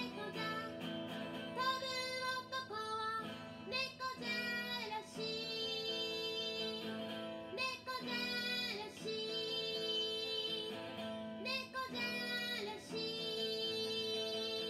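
A woman singing a song to guitar accompaniment, in phrases of long held notes.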